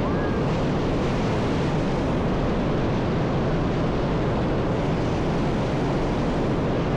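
Steady rushing of a shallow trout stream's flowing water, an even noise that holds unchanged throughout.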